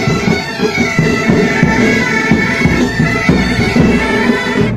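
Pipe band playing: bagpipes sounding their steady drones under the chanter melody, with snare and bass drums beating time. The music breaks off sharply at the very end.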